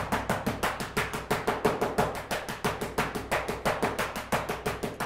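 Thin sticks beating rapidly and evenly on a cloth-covered sieve bowl, several strikes a second, with a low steady hum underneath. This is dried kif being beaten so its resin powder sifts through the screen to make hashish.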